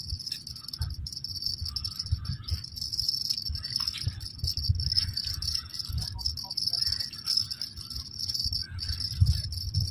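Steady high-pitched chorus of night insects, under irregular low rumbling.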